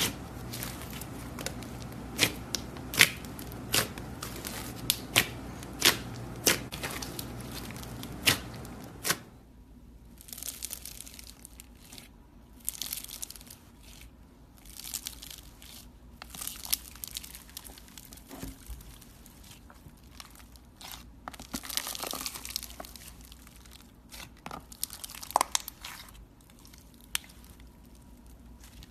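Hands squishing and kneading slime. First come sharp clicking pops, one every half second or so, over a low hum. About nine seconds in these give way to softer, irregular crackling and tearing as slime studded with foam beads and fluffy slime are squeezed and pulled apart.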